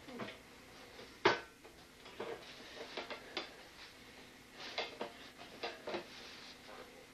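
Metal folding chair being moved and sat on: a sharp clack about a second in, then a run of lighter knocks and rattles.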